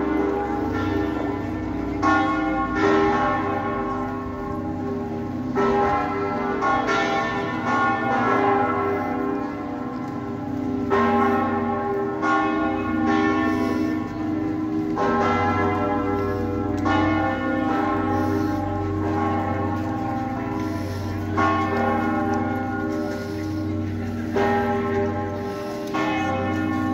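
Church bells ringing in a peal, several bells of different pitch struck irregularly about once a second, each stroke ringing on under the next.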